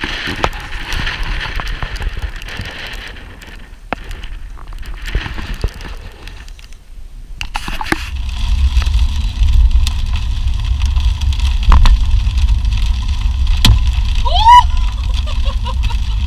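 Steady low rumble of a vehicle on the move, starting about eight seconds in after a break, with a short tone near the end that rises and then falls.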